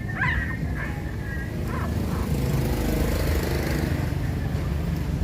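Newborn puppies squealing a few times in the first two seconds, over a steady low rumble that swells a little in the middle.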